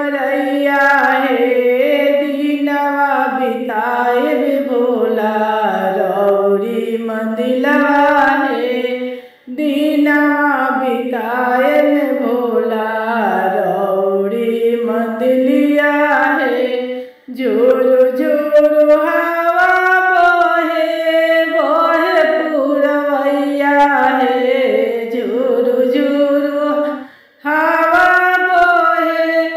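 A woman singing a Bhojpuri Shiv charcha bhajan, apparently unaccompanied, in long melodic phrases broken by short pauses for breath about every eight to ten seconds.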